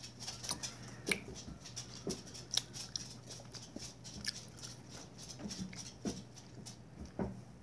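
Close-up eating sounds of a candy being chewed: scattered small clicks and crackles, a few louder ones, over a faint steady low hum.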